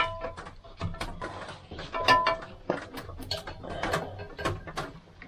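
Metallic clicks, taps and rattles of a small four-stroke generator engine's carburetor and throttle linkage being handled and worked off the engine. The sharpest knocks, at the start and about two seconds in, ring briefly like struck metal.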